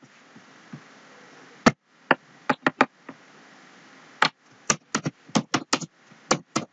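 Computer keyboard typing: separate sharp key clicks, a few around two seconds in, then a quicker run from about four seconds on as a word is typed.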